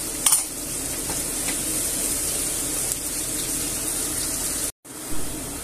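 Chopped onion and garlic frying in olive oil in a frying pan, a steady sizzle. There is a light click just after the start, and the sound drops out for an instant near the end.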